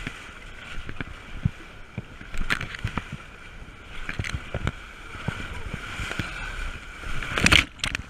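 White-water river rapids rushing around an inflatable raft, with frequent knocks and bumps against the raft and a loud splash near the end.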